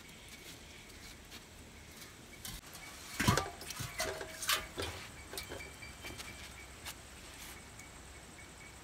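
A single loud knock about three seconds in, followed by a scatter of light clicks and clinks from a metal plate and a plastic cup being handled during a meal.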